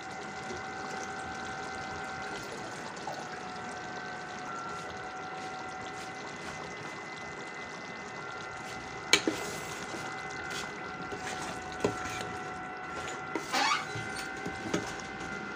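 Thick sauce simmering and bubbling around chicken pieces in a stainless steel pan, with a steady high hum underneath. There are a few sharp clicks, and near the end a metal spoon stirs and clinks against the pan.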